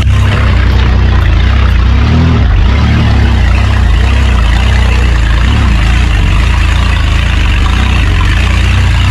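Four-wheel-drive SUV's engine running steadily at crawling speed over a rutted dirt track, with a heavy, steady low rumble.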